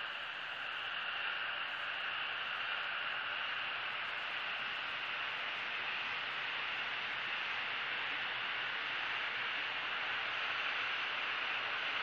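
Steady, even hiss with no distinct events, strongest in the upper-middle range, swelling slightly about a second in and then holding level.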